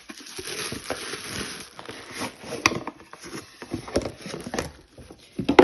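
Product packaging handled by hand: rustling for the first couple of seconds, then several sharp clicks and taps as items are lifted out of the box.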